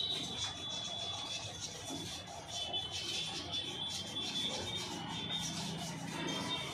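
Metal parts being handled and rubbed inside a Mahindra Jeeto's transmission casing, a continuous run of small scrapes and clicks as the unit is reassembled by hand.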